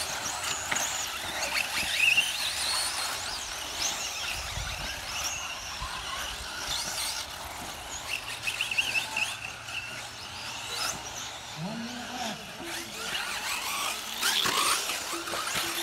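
Several electric RC buggies racing on a dirt track, their motors whining high and rising and falling in pitch as they accelerate and slow, over a steady hiss.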